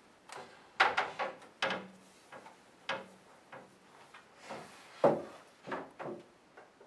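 Wooden side rail of a Today's Baby Sarasota convertible crib knocking and clunking against the crib's end panels as it is lifted and fitted into place. It is a series of sharp knocks, the loudest about five seconds in.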